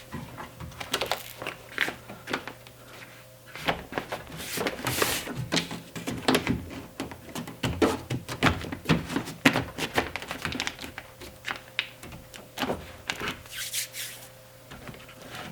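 The door's plastic seal sheet being pressed back onto the inner door by hand, crinkling and crackling with many irregular small taps and knocks.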